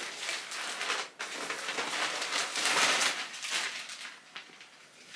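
Thin plastic garment bag crinkling and rustling in irregular swells as a jumper is pulled out of it, fading away after about three and a half seconds.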